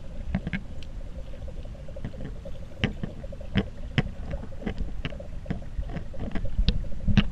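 Muffled underwater sound of swimmers in a pool, recorded with the camera under the water: a low rumble with scattered sharp clicks and knocks, over a faint steady hum.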